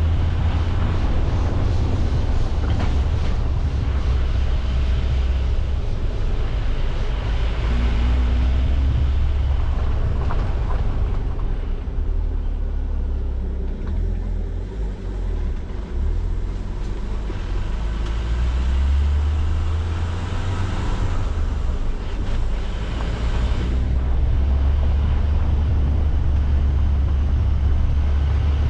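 Car driving, with a steady low engine and road rumble. It eases off for a few seconds around the middle, then picks up again.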